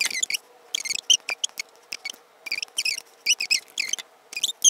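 Hair being handled close to the microphone: a run of short, irregular rustles and squeaky rubbing as a section is gathered and pulled by hand.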